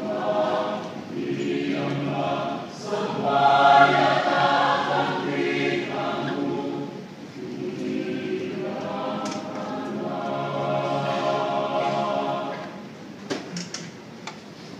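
Church choir singing a hymn in sustained, held chords; the singing dies away about thirteen seconds in, followed by a few sharp clicks.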